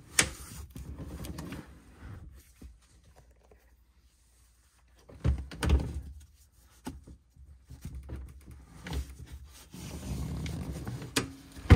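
Dodge Journey rear seatbacks being folded down by hand: rustling and handling noise broken by a few latch clicks and thumps, the loudest a sharp knock near the end.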